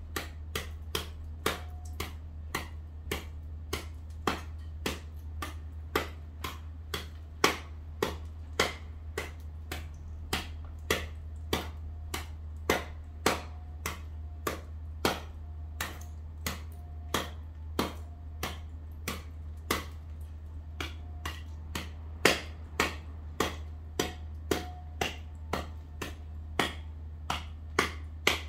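Ice on paving being chipped by hand with a small tool: sharp, evenly spaced knocks, about two a second, over a steady low hum.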